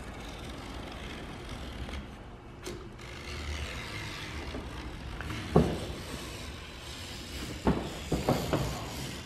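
Perforated vinyl window film being trimmed along the glass edge with a hobby knife and the excess strip lifted away: quiet scraping, with a few short crackles of the film about halfway through and a cluster near the end, over a steady low hum.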